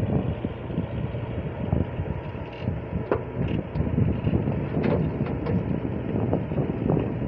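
Wheeled excavator's diesel engine running steadily while the boom and bucket work a palm tree, with a few sharp cracks and rough rumbling over it.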